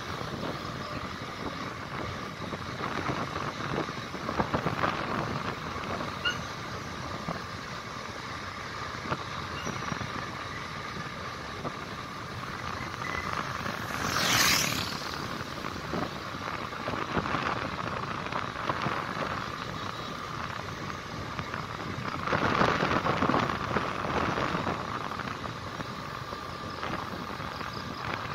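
Steady road and traffic noise heard while riding on a motorcycle. About halfway through there is a brief loud hiss, and a little before the end a louder stretch of a few seconds.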